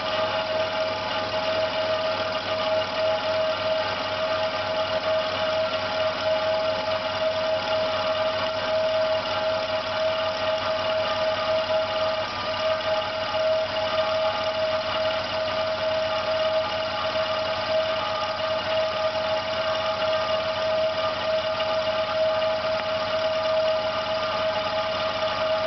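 Electric air compressor running steadily against a closed outlet, with a strong steady whine over its motor and pump sound. It is overheating: the pump side is too hot to touch and the pressure has stopped rising.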